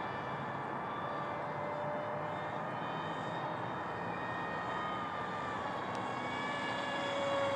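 Brushless electric outrunner motor (Power Up 450, 2200kv) spinning a 6x4 propeller on a small foam RC jet in flight: a steady, distant whine that drops slightly in pitch about five seconds in and grows louder near the end.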